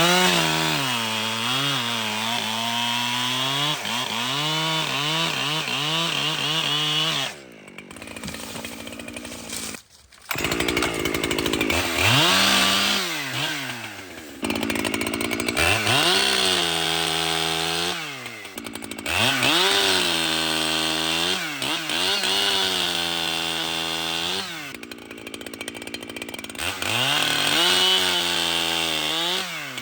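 ECHO two-stroke chainsaw at full throttle cutting wood, its pitch sagging under load and recovering. It drops back three times in short pauses between cuts.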